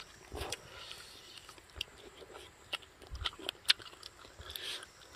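A person chewing and biting food, with scattered small crunches and clicks.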